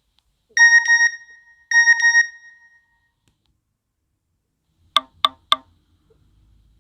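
A Nokia N73 (SoftBank 705NK) playing one of its built-in alert tones: two short bursts of rapid high beeps, about a second apart. About four seconds in come three quick clicks.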